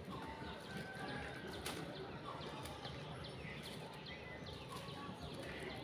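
Birds chirping in many short, repeated calls, over faint rustling and a few light clicks.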